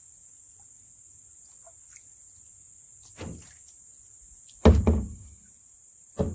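Hollow knocks against a canoe hull: one about three seconds in, a louder double knock near the middle, and another near the end.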